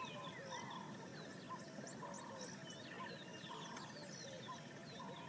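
Faint chorus of many birds calling: short whistles and chirps overlapping, over a steady, even high trill.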